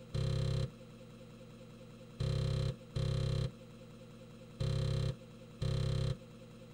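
Emulated 5.25-inch floppy disk drive running with a steady motor hum, broken by five short buzzing bursts of about half a second each as the head steps across the disc. The drive is reading and writing the compiler's working files.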